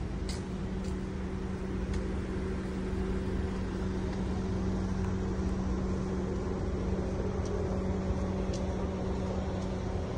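Steady city street background: road traffic under a constant low mechanical hum, with a few faint clicks.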